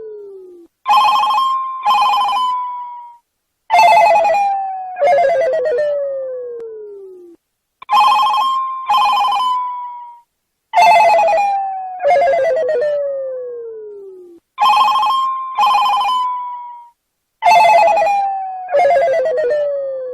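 Phone ringtone repeating: two struck notes at a steady pitch, then two notes that slide down in pitch, each ringing out and fading. The cycle repeats over and over.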